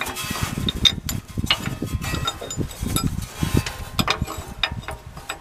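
Irregular light clicks and metallic clinks of a steel sway-bar mounting bracket, bushing and bolt being handled and fitted against the axle.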